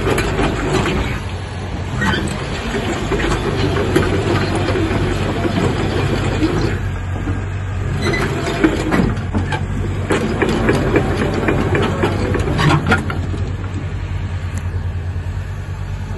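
Cat hydraulic excavator moving on its steel tracks, its diesel engine running steadily under load, with repeated clanking and knocking of the track links as the machine travels and turns on gravel.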